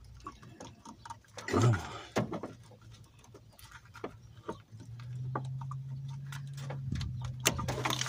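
Scattered clicks and knocks of hands pulling and working at wiring and parts in a truck's engine bay. About five seconds in, a steady low hum starts and carries on.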